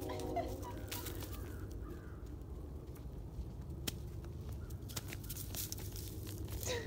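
Horse walking on a leaf-strewn dirt trail, with scattered irregular crunching steps over a steady low rumble. A few faint bird calls come through early on and again just before the end.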